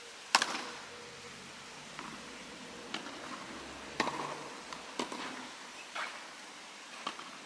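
Tennis ball impacts on racket strings and court, a series of sharp knocks about once a second, the first the loudest.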